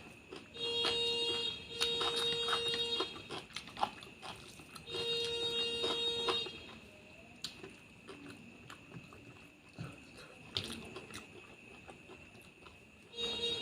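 Chewing and eating clicks of someone eating curry and rice, under a steady buzzer tone that sounds for about a second at a time: twice in quick succession, again around the middle, and briefly at the end.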